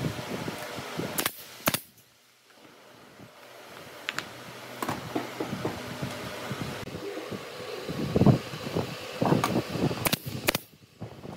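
Pneumatic brad nailer firing into pine frame strips, sharp single shots: a pair about a second in, two more a few seconds later and a pair near the end. Between them come dull knocks of wood pieces being set down, the loudest about eight seconds in, over a steady background hum.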